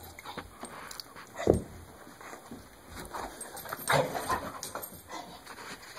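A pit bull–Labrador mix dog playing rough with a rubber KONG bone on a rug: irregular knocks and scuffs of the toy and paws, one heavy thump about a second and a half in, along with short dog vocal sounds.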